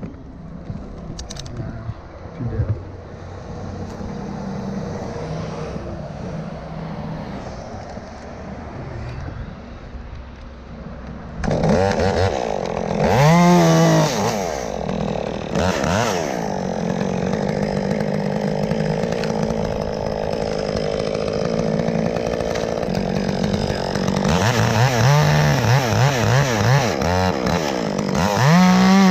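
Chainsaw engine running at idle, then revved up about eleven seconds in, its pitch rising and falling several times and held high near the end.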